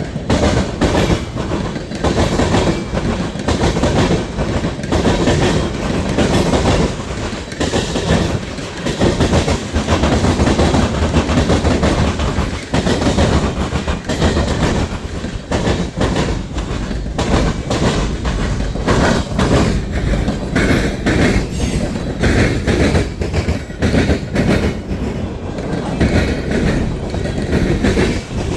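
Norfolk Southern freight train passing at speed, a steady loud rumble of cars rolling by with continuous clattering and clacking of wheels over the rail joints.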